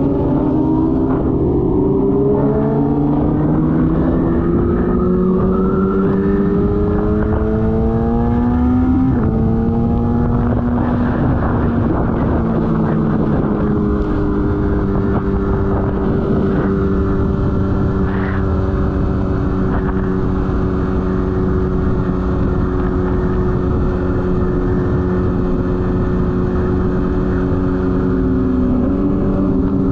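Vehicle engines climbing slowly in pitch over several seconds, then running at a steady pitch for the rest of the time.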